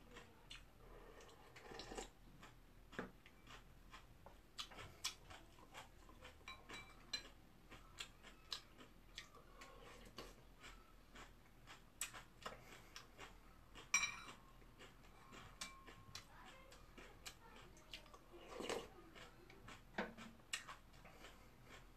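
Quiet eating sounds: a metal spoon clicking and scraping against a ceramic bowl, with sips from the bowl, in many short scattered clicks.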